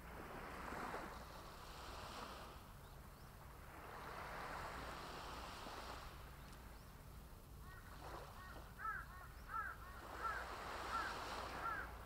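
Small waves washing up a sandy, pebbly beach in slow surges a few seconds apart. About two-thirds of the way through, a bird starts a string of short calls, roughly one every two-thirds of a second.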